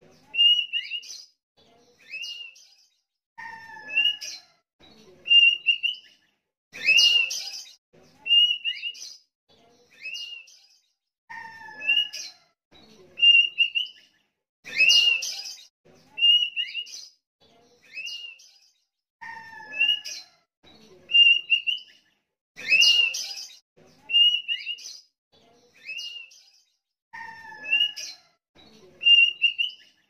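Sooty-headed bulbul (kutilang) singing: short, clear whistled notes, some falling in pitch, in a lively phrase repeated over and over every few seconds.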